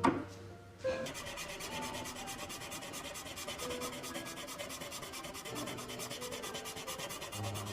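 Abrasive rubbing on the saxophone's brass in quick, regular back-and-forth strokes, starting about a second in: hand sanding or polishing as the lacquer is stripped to bare brass.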